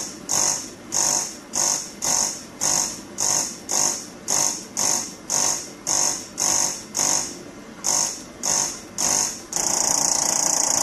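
Pelvic-floor magnetic stimulation chair buzzing in short pulses, just under two a second, while it delivers stimulation through the seat. About nine and a half seconds in the pulses give way to a continuous buzz.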